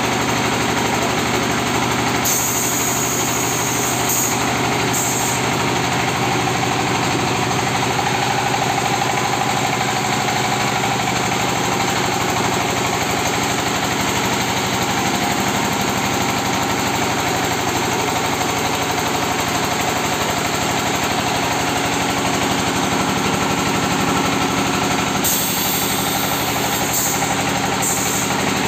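Engine-driven red-brick press machine running steadily with a continuous engine drone. A higher hiss joins for about three seconds twice.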